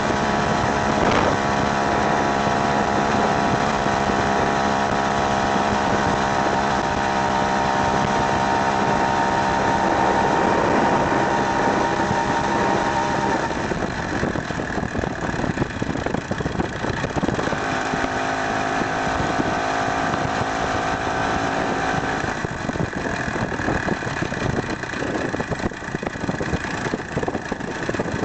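Two-stroke Ural chainsaw engine fitted to a wheelchair, running. It holds a steady pitch for about the first half, then its speed changes and the sound turns rougher, with another steady stretch a little past the middle.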